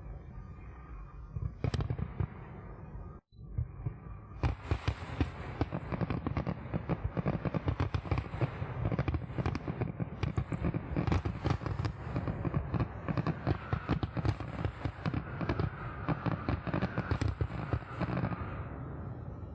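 Fireworks display: a single loud bang about two seconds in, then from about four seconds a dense, rapid run of crackling and bangs that dies away near the end.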